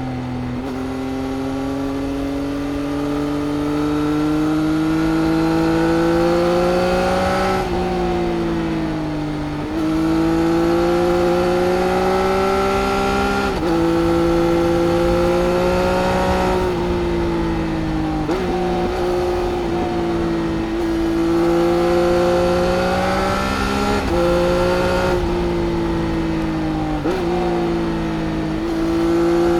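Triumph Speed Triple RS's 1050 cc three-cylinder engine pulling on the move, heard onboard. Its pitch climbs steadily under throttle and drops sharply at each of several gear changes and throttle lifts.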